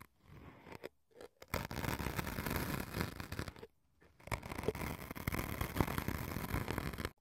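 Ear pick scratching and poking into a foam block close to the microphone, a dense scratchy rustle in three bouts with short pauses between them: a faint short one at the start, then two longer ones.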